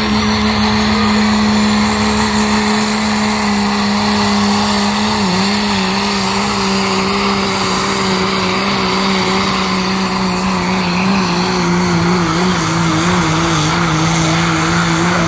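3.0-litre diesel pickup engine at full throttle pulling a weight-transfer sled: a steady, loud drone whose pitch sags slowly and wobbles in the second half as the load builds.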